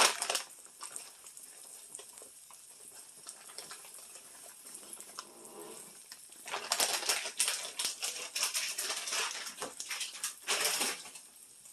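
Egg frying in a pan, a faint crackling sizzle, with a louder stretch of dense crackling from about six and a half to ten seconds in.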